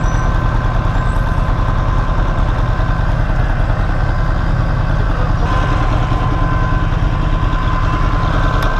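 Motorcycles running at expressway speed, heard as a loud steady rumble of engine and wind noise on the camera's microphone, with a steady high whine over it.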